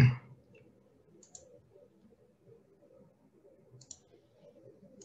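Three faint, sharp clicks of a computer mouse, a second or two apart, over quiet room tone.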